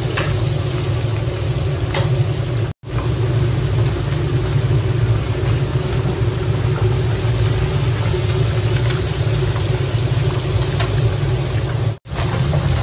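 Fish deep-frying in a large kazan of hot oil: the oil bubbling and sizzling over a steady low rumble from the burner flame under the pot. The sound cuts out briefly twice.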